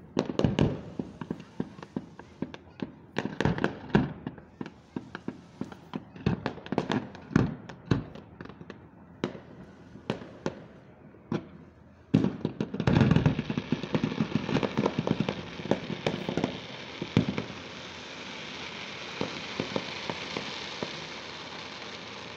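Aerial fireworks bursting: a run of sharp bangs that comes thickest about twelve to seventeen seconds in, then gives way to a steady hiss that swells and eases off near the end.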